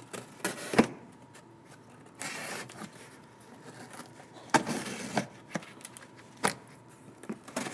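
A sharp knife slicing through corrugated cardboard box flaps in short scraping strokes, with sharp clicks and knocks of the box between them.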